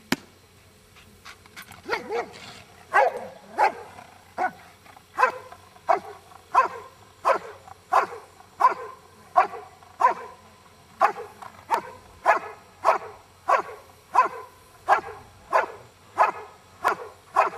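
Giant Schnauzer barking steadily and rhythmically, about three barks every two seconds, starting about two seconds in: the hold-and-bark of Schutzhund protection work, the dog guarding a helper at the blind.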